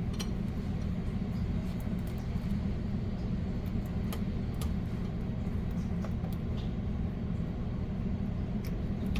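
Wire cutters trimming back electrical wire ends: a scattering of small sharp snips and clicks over a steady low machine hum.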